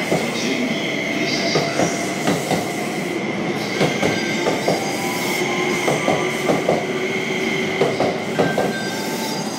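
E261-series Saphir Odoriko express train rolling past along the platform, its wheels knocking sharply over rail joints every half second or so under a steady high-pitched whine.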